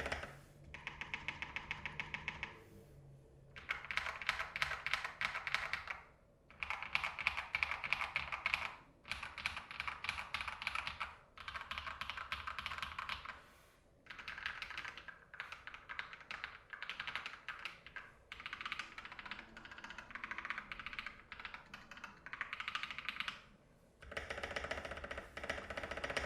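Typing on a Nimbleback NB681 65% hotswap mechanical keyboard with Akko Ocean Blue switches, PE foam, tape and band-aid mods. Rapid keystrokes come in bursts of a few seconds with short pauses between them, with a crisp, deep, marbly sound.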